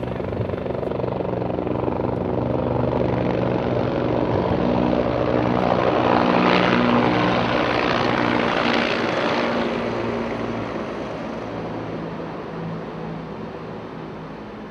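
Helicopter flying over, its rotor and engine noise growing louder toward the middle, then fading away.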